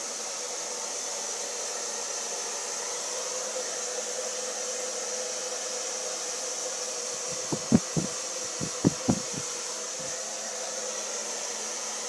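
Hand-held hair dryer blowing with a steady hiss and hum. A quick cluster of low thumps comes about halfway through.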